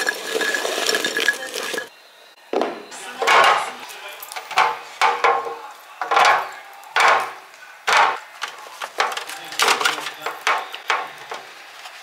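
Shelled walnut halves poured into a glass jar, rattling against the glass for about two seconds. After a brief break come a string of separate knocks and clatters as a clear plastic storage bin is handled and avocados and packaged produce are set into it.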